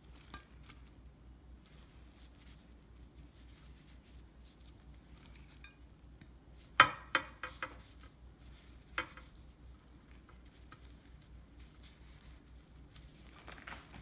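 Soft patter and rustle of a gloved hand arranging cooked calamari and shrimp on a platter. A sharp clatter of dishes knocking together comes just before halfway, four quick knocks, with one more knock about two seconds later.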